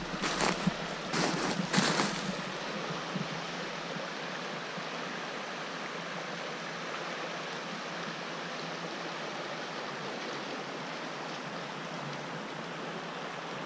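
Creek running high after a thaw and heavy rain: a steady rush of flowing water. A few short crunches in the first two seconds, footsteps on the snowy bank.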